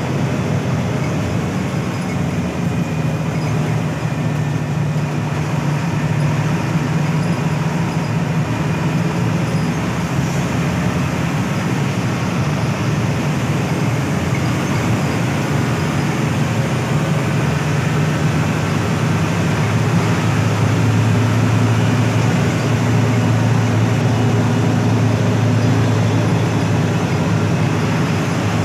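Hino AK8 bus's front-mounted diesel engine running on the road, with steady road noise. About twenty seconds in, the engine note drops lower and gets a little louder.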